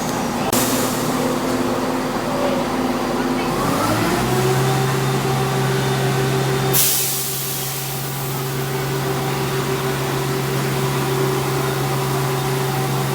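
Train standing at the platform, running with a steady hum. About four seconds in the hum rises in pitch and then holds. About seven seconds in there is a sudden loud hiss of air from the brakes.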